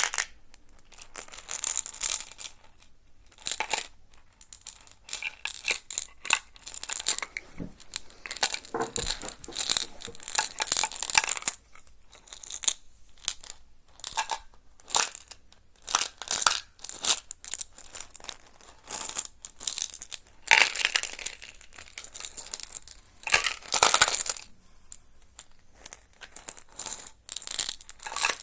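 Close-microphone ASMR handling sounds: irregular crisp clicks and crackles in short bursts, with a couple of longer, denser crackling stretches near the end.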